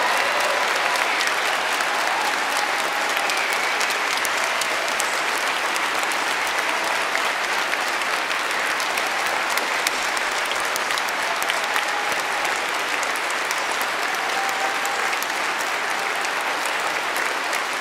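A large concert-hall audience applauding, steady and sustained, with no break.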